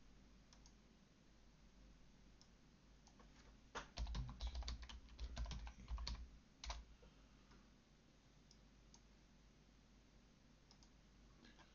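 Typing on a computer keyboard: a quick run of keystrokes lasting about three seconds, starting about four seconds in.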